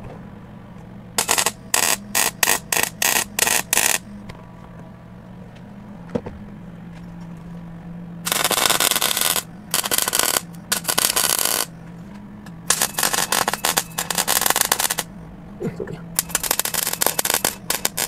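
MIG welder arc crackling in bursts as subframe connectors are tack-welded into the chassis rails. There is a quick run of about eight short tacks in the first few seconds, then longer bursts of a second or two from about eight seconds in, over a steady low hum.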